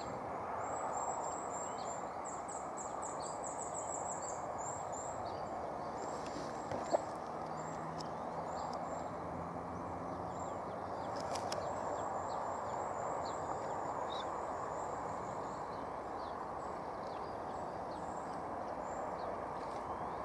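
Outdoor ambience of a steady low rush with a small bird's high, thin calls repeated in quick runs, busiest about two to five seconds in and again around twelve to fourteen seconds in. A single short click sounds about seven seconds in.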